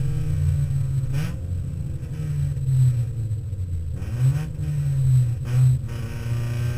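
A 1992 Ford Escort GT's 1.8-litre twin-cam four-cylinder engine under racing load, heard from inside its cabin, its revs climbing twice: about a second in and again around four seconds in.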